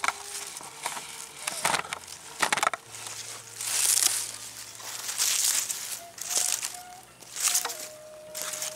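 Grass blades rustling close to the microphone in a string of short, crackly bursts about a second apart.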